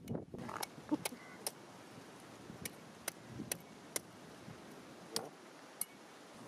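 Knife work on a large fish being gutted: a string of sharp, irregular clicks and small knocks over a faint steady hiss.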